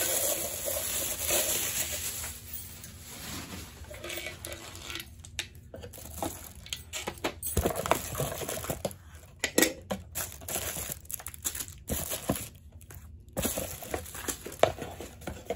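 Plastic wrapping crinkling and rustling as it is handled and pulled off the parts of a makeup brush cleaner, with scattered light clicks and knocks.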